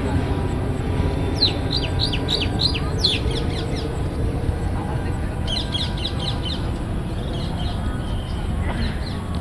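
A bird calling in quick runs of short, falling, high chirps, three runs in all, the last one fainter, over a steady low outdoor rumble.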